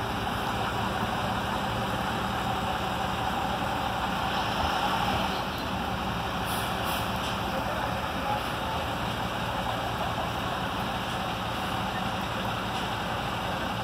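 Utility bucket truck's engine idling steadily.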